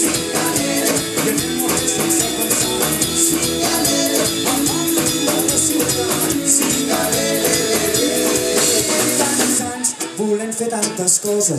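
Live ska-fusion band playing an instrumental passage with drums, bass, guitars and horns. About ten seconds in, the bass and drums drop out, leaving a sparser break.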